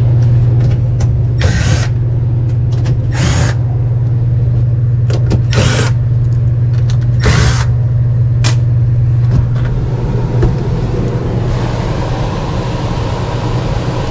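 A steady low machine hum, with four short rushing noises about two seconds apart, a sharp click about eight and a half seconds in, and a broader hiss joining near the end.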